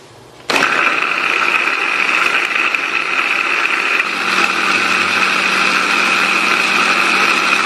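Mitochiba CH100 electric food chopper running, its blade chopping fresh chilies and vegetables into a paste. The motor starts suddenly about half a second in and then runs with a steady whine.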